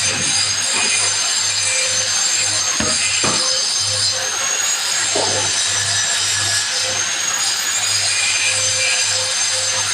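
Hand saw cutting a workpiece at a workbench, with steady back-and-forth strokes and a few sharper knocks about three seconds in.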